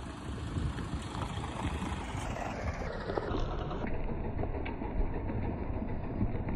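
Mahindra Scorpio SUV's engine running as the vehicle rolls slowly on a dirt track, a steady low rumble.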